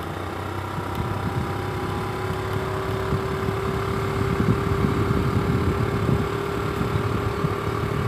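Wind rumbling on the microphone of a phone carried on a moving bicycle, with a steady hum of riding along a paved path.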